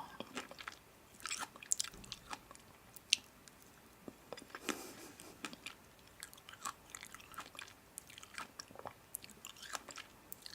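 A person chewing and biting food close to the microphone: irregular crisp crunches and small mouth clicks.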